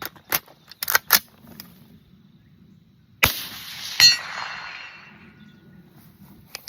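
A CMMG MK47 rifle in 7.62×39 fires one shot, and under a second later a steel target clangs from the hit and rings, fading over about two seconds. A few sharp clicks come before the shot.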